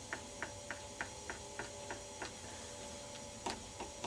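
Faint, evenly spaced ticks, about three a second, as a bench vise is slowly tightened on a plastic laptop charger case, with a short pause a little past the middle; the case is being squeezed to crack it open along its seam.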